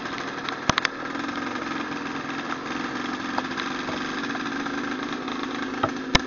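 Off-road trail motorcycle engine running steadily at low revs. A quick group of three sharp clicks comes about a second in, and another click or two near the end.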